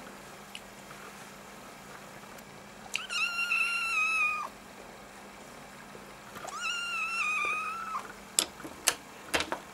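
Kitten mewing: two long, high-pitched, steady calls, one about three seconds in and one past the middle, each lasting about a second and a half. A few sharp knocks follow near the end.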